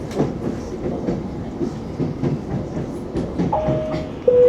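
ES2G 'Lastochka' electric train running, its wheels rumbling and clicking over the rail joints. Near the end the onboard passenger-information system sounds a two-note falling chime, the second, lower note the loudest, announcing the station arrival.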